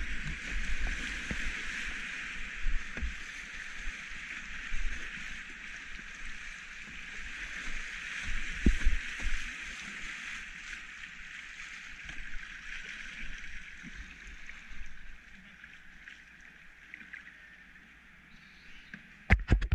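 Rushing whitewater of a river rapid heard from a kayak, with scattered low thumps from paddling and water against the boat. The rush gradually eases over the last few seconds as the boat reaches calmer water, and there are a couple of sharp knocks near the end.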